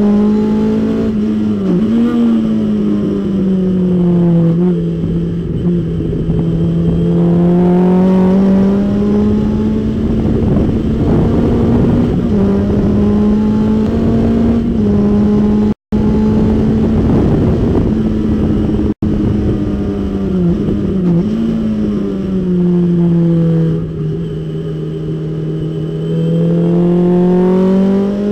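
Datsun 510 race car's four-cylinder engine running hard in fifth gear, heard from inside the cockpit, its pitch sagging and climbing again several times as the throttle is eased and reapplied through the corners. The sound cuts out for an instant twice a little past halfway.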